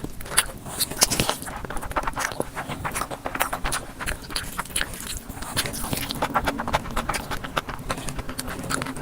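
Close-miked eating of biryani: dense wet clicks, crackles and scraping as the rice is mixed and chewed, with a faint steady hum from about a second in.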